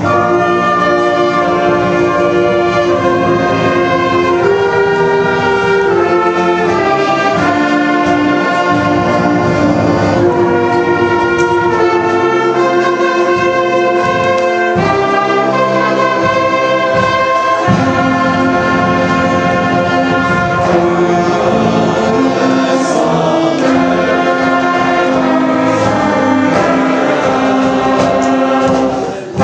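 A brass-led concert band playing a patriotic song with a choir singing along, loud and sustained. It starts abruptly and pauses briefly near the end.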